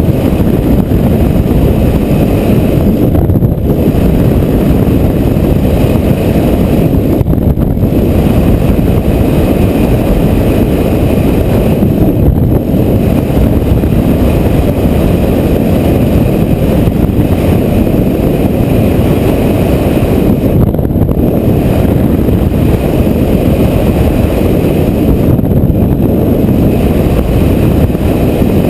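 Strong dust-storm wind blowing across the microphone: a loud, steady, low rumble that never lets up.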